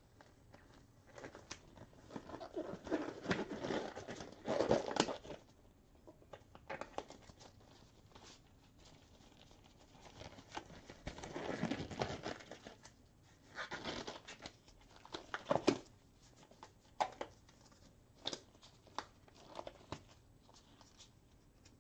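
Crinkling and rustling of packaging being handled, in several bursts, followed near the end by scattered light clicks and taps.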